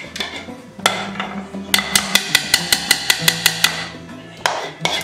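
A spoon knocking and scraping against a small saucepan of cream as the cream is scraped out. There is one sharp knock about a second in, then a quick, even run of about a dozen clicks, roughly seven a second, and another knock near the end.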